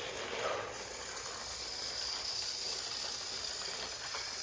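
Battery-powered toy train engine running along its plastic track: a steady whirring of its small motor and gears, with a thin high whine held throughout.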